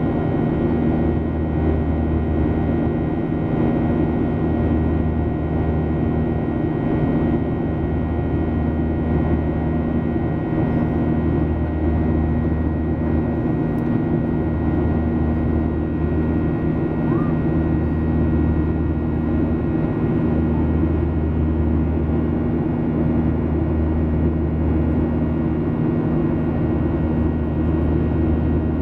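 Boeing 737-800 jet engine (CFM56-7B) and airflow heard from inside the passenger cabin in flight: a steady drone with several held tones over a low rumble that swells and eases every couple of seconds.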